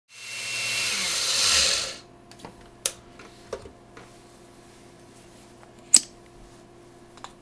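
Blender grinding dry wheat berries into coarse flour, running loudly for about two seconds, then switched off, its motor falling in pitch as it spins down. A few sharp clicks and knocks follow over a steady low hum, the loudest about six seconds in.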